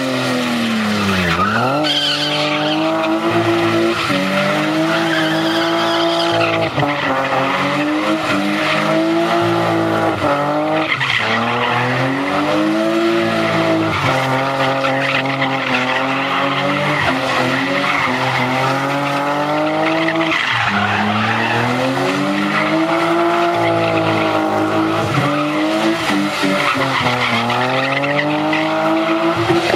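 Nissan R33 Skyline coupe doing a donut burnout: the engine is held high in the revs, rising and falling every two to three seconds after a sharp dip about a second in, while the rear tyres spin and squeal on the pad.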